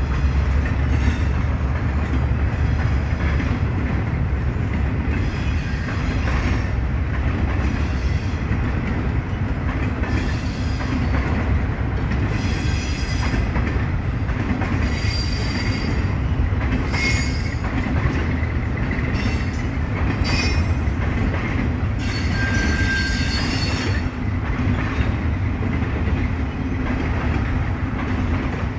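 Freight train of boxcars rolling past at steady speed: a constant low rumble of steel wheels on the rails. From about ten seconds in, high-pitched wheel squeals come and go several times, the longest just after twenty-two seconds.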